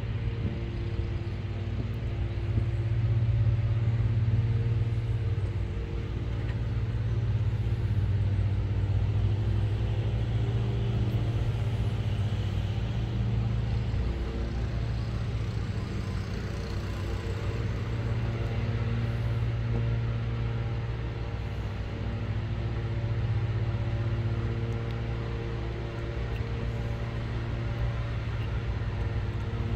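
Diesel locomotive engines of an approaching freight train, heard from a distance as a steady low hum that swells and eases slowly.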